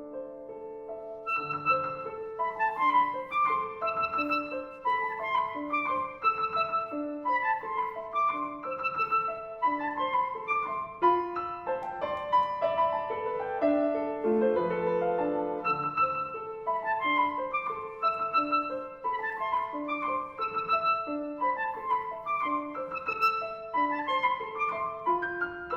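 Clarinet and piano playing contemporary classical chamber music, the piano prominent, in quick short notes with a steady pulse.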